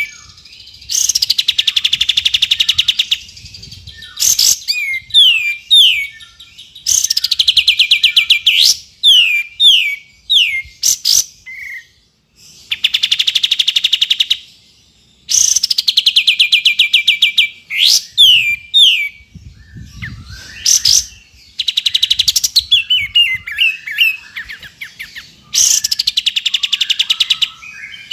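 Streak-eared bulbul (kapas tembak) singing: rapid trills of about two seconds, each made of fast falling strokes, recur about six times, with short sharp down-slurred whistled notes in between.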